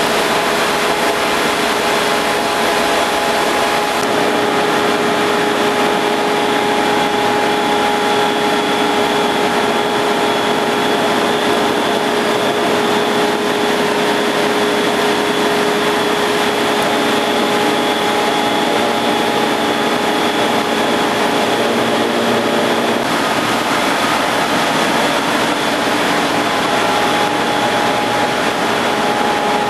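Ship's engine-room machinery running: a loud, steady drone with several constant whining tones over a hiss. A deeper rumble comes in about three quarters of the way through.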